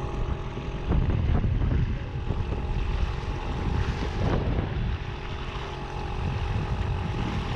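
Small outboard motor running steadily under load while towing a kayak on a line, with water rushing and splashing along the towed kayak's hull and wind buffeting the microphone.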